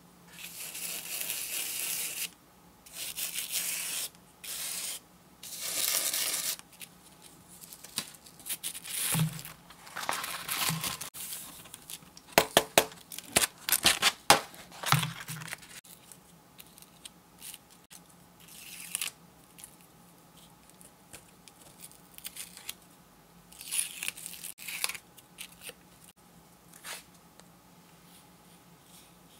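Coloured craft sand poured and spread across a paper sand-art sheet with a plastic spoon, hissing in several bursts. In the middle the sheet is lifted and bent to shake off loose sand, giving a run of sharp paper crackles and taps. Near the end there is another short hiss of sand being poured.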